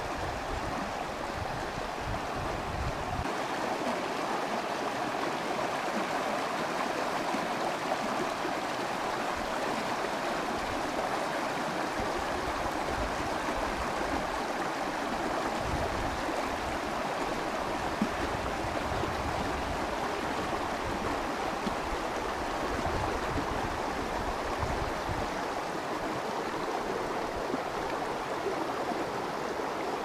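Shallow stream running over rocks: a steady rushing of water.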